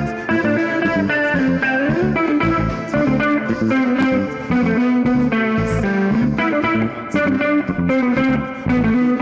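Live band playing an instrumental funk-jazz groove, led by electric guitar over bass and drums.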